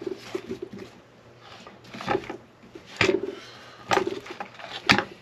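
Small parts and packaging being handled: four sharp clicks and knocks about a second apart, the last the loudest.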